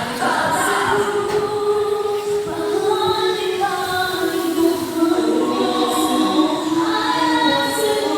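Background music with layered, choir-like wordless vocals holding long notes.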